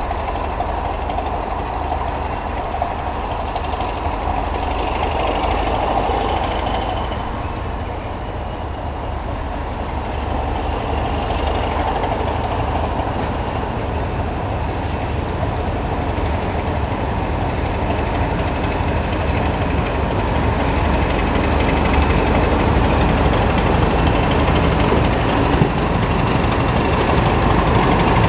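Diesel train engine running steadily, a deep rumble that slowly grows louder toward the end.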